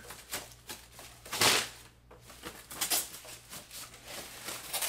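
Plastic protective wrapping rustling and crinkling as it is handled, in irregular bursts, with the loudest rustle about a second and a half in.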